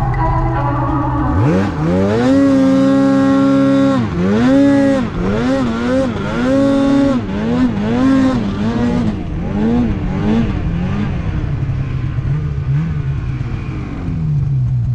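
Mountain snowmobile engine revving hard in deep powder. It climbs to high revs about a second and a half in and holds there. Then it is throttled on and off about once a second, settling to a lower, steadier run near the end as the sled slows to a stop.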